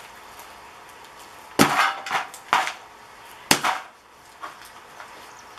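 Three loud metal clanks with brief ringing, about a second apart, as the steel casing of a scrapped sign ballast is knocked and worked against a metal tray.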